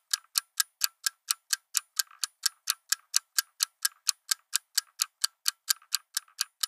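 Countdown ticking sound effect: sharp, evenly spaced, clock-like ticks, about four a second.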